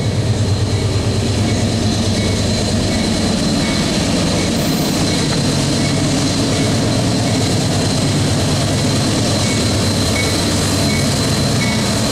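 Freight train rolling past close by, a steady rumble of autorack cars on the rails, while a Union Pacific diesel locomotive approaches on the next track with its engine running. A thin, steady high whine runs throughout.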